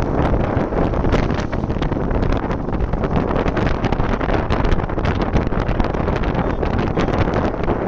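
Wind buffeting hard on the microphone of a motorcycle moving at road speed, with a dense low rumble of engine and road noise beneath it.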